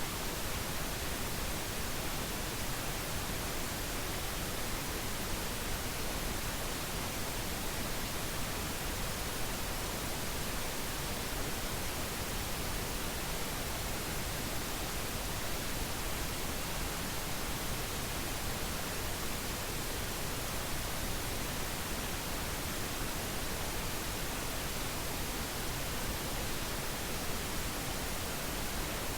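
Pink noise test signal: a steady, even hiss across the whole range with a deep low end, its spectrum falling by 3 dB per octave.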